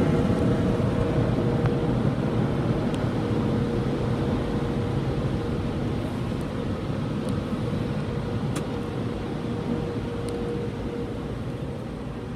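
Car wash dryer blowers running, a steady rush with a constant whine, slowly fading as the car pulls away from the tunnel exit, heard from inside the car.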